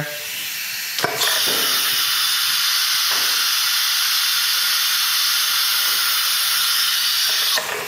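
Compressed air hissing steadily from the CNC spindle's pneumatic tool release, which holds the tool released for the change. The hiss grows much louder about a second in and cuts off sharply near the end.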